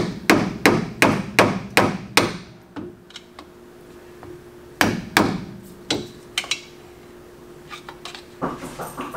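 A hammer striking the metal dust cap over the axle nut on a 2005 Chevy Silverado 1500's front wheel hub to knock it loose. About seven quick blows come in the first two seconds, roughly three a second, followed by a few spaced strikes near the middle.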